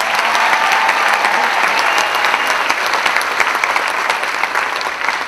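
Theatre audience applauding, a dense steady clapping that starts to die down near the end.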